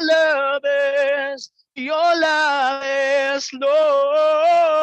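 A single voice singing a worship song, holding long, wavering notes, with a short break for breath about a second and a half in.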